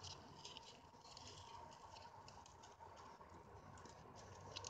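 Faint, scattered rustling and light crackles of grosgrain ribbon handled between fingers as it is wrapped around the centre of a hair bow, over a low steady room hum.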